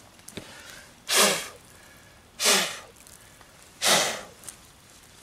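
A person close to the microphone takes three forceful breaths, about a second and a half apart, each a rush of air that fades out downward.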